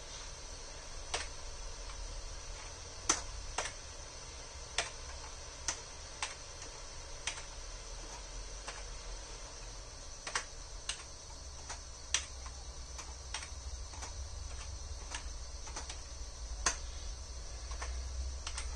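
Computer keyboard keys pressed one at a time, irregular single clicks about a second apart, over a steady low hum.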